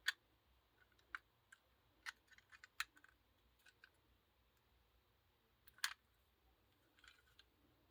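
Small pliers clicking against the metal spring contacts of a GFCI receptacle as the bent-out contacts are squeezed back into shape: scattered sharp clicks and ticks, the loudest near the start and just before six seconds.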